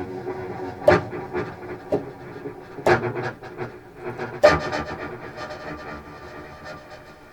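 Contrabass clarinet run through an effects pedalboard into a Walrus R1 stereo reverb on a glitch preset, heard through studio speakers: low tones chopped into stuttering fragments, with sharp clipped attacks about once a second that trail off into reverb. The sound thins and quietens toward the end.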